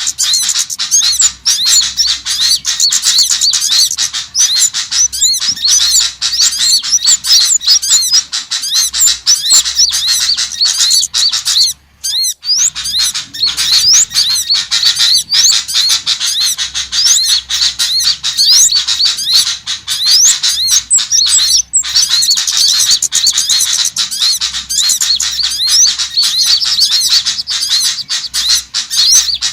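Dense, rapid high-pitched chirping and calling of small songbirds, a bird-luring call track. The chirps come closely packed and overlapping, with a brief break about twelve seconds in.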